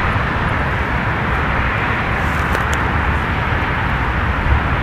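Strong gusty wind buffeting the microphone, a fluttering low rumble over a steady rushing hiss.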